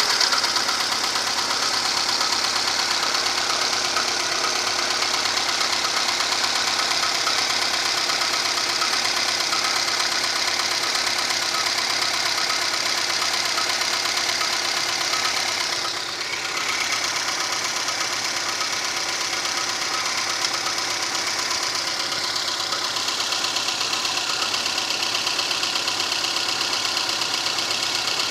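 VAZ-2115 (Lada Samara) inline-four engine running steadily with a knock that the owner cannot place. He says it knocks when easing off the throttle or driving without load. The sound dips briefly a little past halfway.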